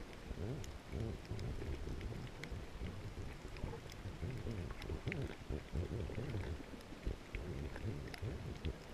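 Underwater ambience picked up by a submerged camera: a low, uneven rumble of moving water with scattered faint clicks.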